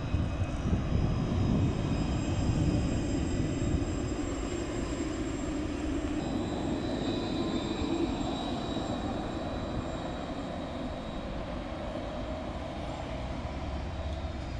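Alstom Citadis tram passing close by and pulling away: a rumble of steel wheels on rail under steady high-pitched whines from its electric traction equipment. It is loudest in the first few seconds and fades as the tram draws off.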